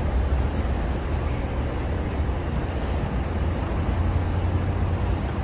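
Steady low rumble of vehicle traffic and running engines, with a few faint clicks about a second in.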